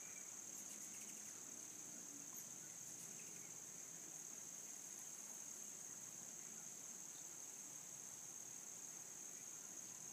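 Faint, steady high-pitched chorus of calling insects, a continuous trill without breaks.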